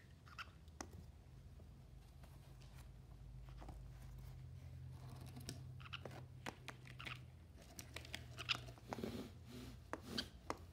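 Baby conure nibbling at the metal prongs of a massage tool with its beak: faint, irregular clicks and scrapes, coming thicker in the second half.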